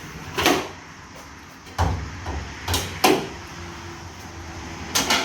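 A series of sharp clacks and knocks from handling the Jeep Wrangler's hood and its latches: about five in all, one with a dull low thud about two seconds in.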